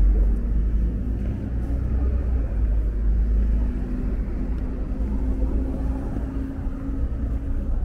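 Seoul subway train running: a steady low rumble with a faint steady hum, easing a little just after the start.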